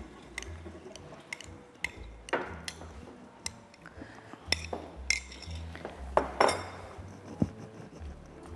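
Utensils clinking against glass bowls, a dozen or so irregular light clinks and scrapes, as grated parmesan is tipped from a small glass bowl into a glass mixing bowl and stirred in.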